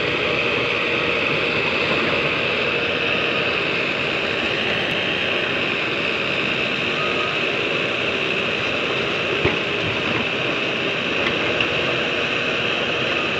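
Diesel engines running steadily as a Mahindra backhoe loader digs and loads soil into a Mahindra 575 tractor's trolley, with one short knock about nine and a half seconds in.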